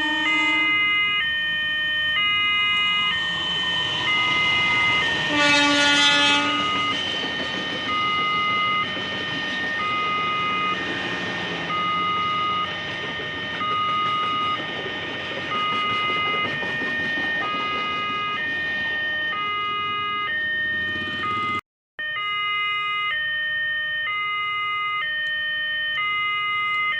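Railway level-crossing warning alarm sounding a repeating pattern of alternating electronic tones. About five seconds in a diesel locomotive sounds its horn briefly, and a passing train adds a steady rumble for some fifteen seconds.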